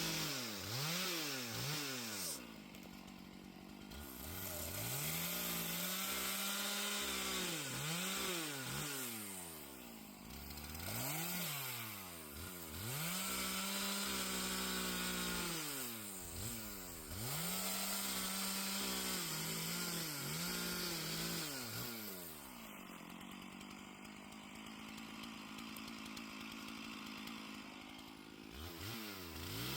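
Gasoline chainsaw cutting a fallen tree into firewood rounds: the engine is held at high revs through each cut, dropping and picking up again several times between cuts. Late on it falls to a quieter idle for several seconds, then revs up again at the end.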